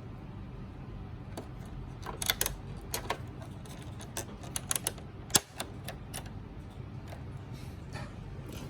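Sharp plastic clicks and taps from hands handling a Sony PS4 Pro's casing to get at its hard drive. The clicks come in a quick cluster from about one and a half seconds in, with the loudest snap about five seconds in, over a steady low hum.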